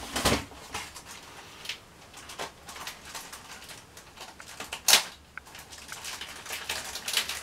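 Clear plastic packaging bag crinkling and rustling in the hands as it is cut open with a knife, with one sharp crackle about five seconds in.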